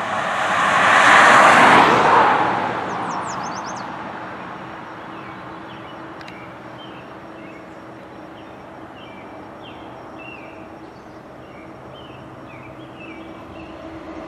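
A loud rushing sound swells and fades over the first couple of seconds. After it comes the steady drone of an approaching freight train's diesel locomotives, led by a GE ES44DC, with short bird chirps over it.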